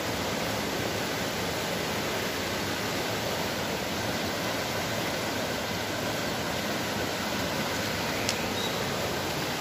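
A small river in flood rushing over rocks: a steady, even rush of fast, muddy water swollen by a night of torrential rain.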